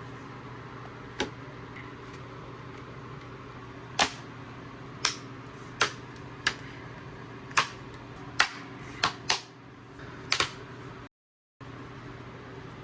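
About ten sharp plastic clicks and taps from a laptop's casing parts being handled and pressed together, irregularly spaced, some in quick pairs, over a steady low hum.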